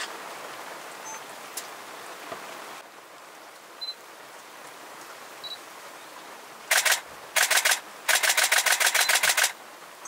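A camera shutter firing in continuous bursts: two short bursts about six and a half seconds in, then a longer rapid run of about nine frames a second lasting over a second, over a steady background hiss.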